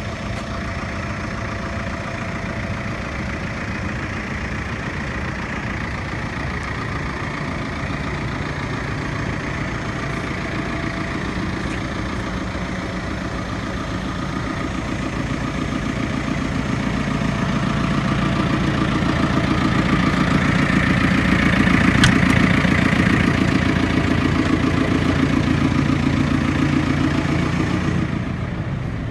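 JCB 5CX backhoe loader's diesel engine running steadily. It grows louder from about halfway through and eases off near the end, with one sharp click a little after two-thirds of the way.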